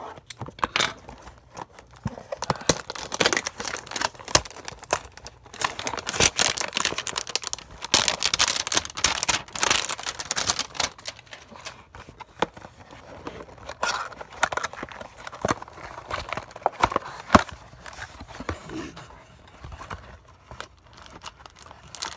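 Hands tearing open and handling a cardboard trading-card hanger box: an irregular run of crinkling, tearing and tapping noises, busiest around the middle.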